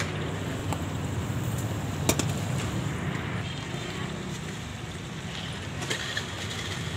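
Fish grilling over a charcoal fire, with a steady sizzle and a few sharp crackles, against a constant low rumble of street traffic and background chatter.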